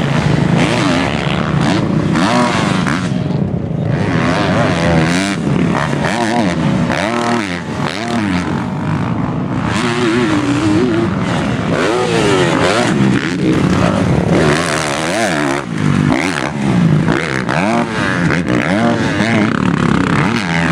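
Kawasaki motocross bike's engine revving up and dropping off again and again as it is ridden over supercross jumps and through turns.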